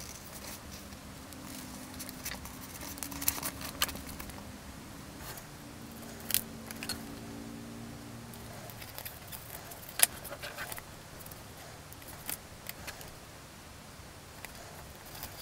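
Faint handling sounds: scissors cutting glossy sticky-backed sticker paper, then scattered light clicks and taps as the stickers are laid with tweezers onto small styrene plates.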